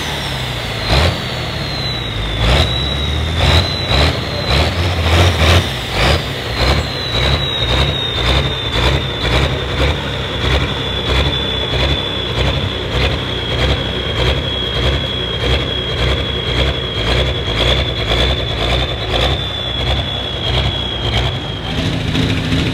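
Super Farm pulling tractor's turbocharged diesel engine running under load, with a high turbo whine that falls at first, then holds steady and cuts off near the end. Under the whine there is a regular pulsing about twice a second.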